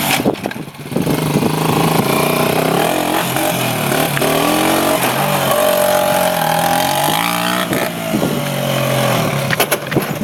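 Small motorbike engine revving up and down over and over, its pitch rising and falling, with a brief drop in level about half a second in.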